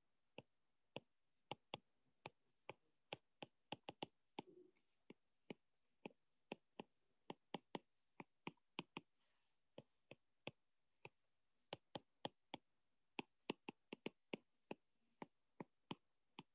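Faint, sharp clicks, irregular at about two to four a second with a couple of short pauses, from hand-writing on a digital whiteboard as each stroke is put down.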